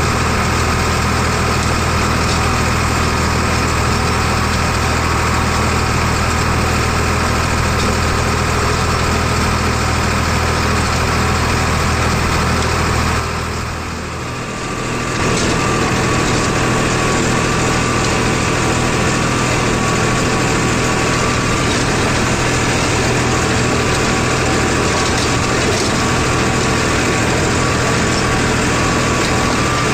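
Farmtrac 60 Classic T20 tractor's diesel engine running steadily. About halfway through, the sound dips briefly and changes to the tractor driving a GS rotavator through the PTO, tilling dry soil.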